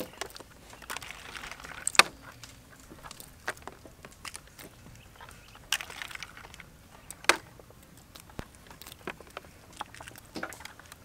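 Raw chicken feet being handled and tossed into a plastic basket: irregular light taps and clicks with soft rustling. The loudest clicks come about two seconds in and again about seven seconds in.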